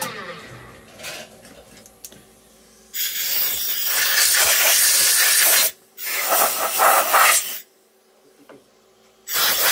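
A milling machine's spindle winds down at the start. Then a compressed-air blow gun hisses in three blasts, clearing aluminium chips off the freshly milled heat-sink block in the vise: a long blast a few seconds in, a shorter one right after, and a third near the end.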